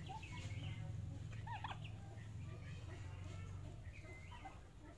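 Young poultry, turkeys and chickens, peeping and chirping while pecking at feed: several short high calls that rise and fall, over a steady low hum.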